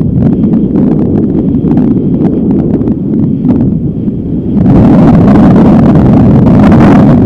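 Strong wind buffeting the microphone in a loud, rumbling rush with crackles; about two-thirds of the way in it grows into a louder, hissier blast that holds until near the end.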